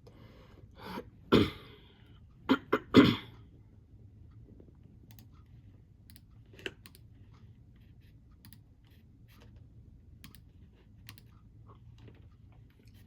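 Close-miked chewing of a crunchy snack: a few loud crunches in the first few seconds, then faint scattered clicks.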